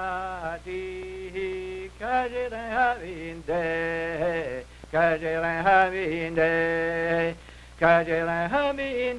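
A man singing a slow folk-style song in phrases of held, wavering notes, with short pauses between phrases and a steady low hum beneath.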